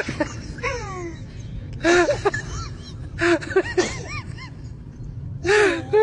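Babies sneezing: four short, sharp sneezes about one to two seconds apart, with small rising-and-falling vocal sounds between them.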